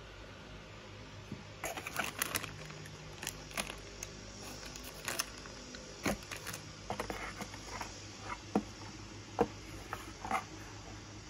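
Unpacking handling noises: a plastic-bagged cable and a metal bracket crinkling, rustling and tapping as they are lifted out of a cardboard box, in scattered short bursts.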